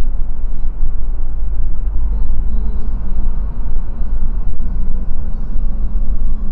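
Steady in-cabin road and engine noise of a car moving along at traffic speed, picked up by a windscreen dashcam: a loud, even low drone with no sudden events.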